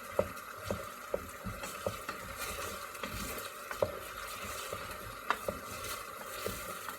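A utensil stirring vegetables in a pan over low heat, knocking lightly and irregularly against the pan about once or twice a second over a faint steady sizzle.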